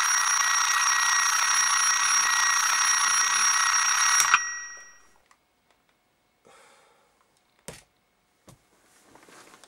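Bell alarm clock ringing loudly and continuously, stopping abruptly with a click about four seconds in as it is switched off. After that come a few faint rustles of bedclothes and two small clicks.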